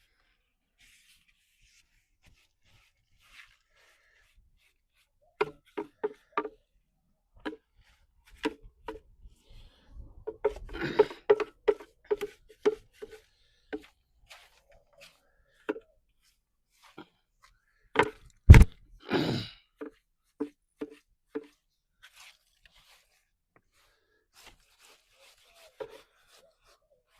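Irregular sharp knocks and scrapes of hand work on a hard surface, each knock ringing briefly, with one loud thump about eighteen seconds in.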